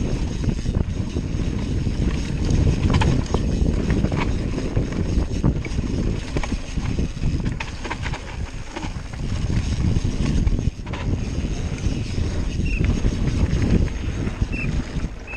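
Mountain bike descending a dirt trail at speed: wind buffeting the microphone and tyres rolling over the dirt in a steady rumble, with frequent short knocks and rattles from the bike over bumps.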